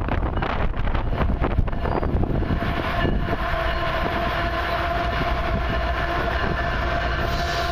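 Wind buffeting the microphone, then about three seconds in an approaching Canadian Pacific freight locomotive sounds its multi-tone horn and holds it in one long steady blast over the low rumble of the train. It is the warning for the grade crossing ahead.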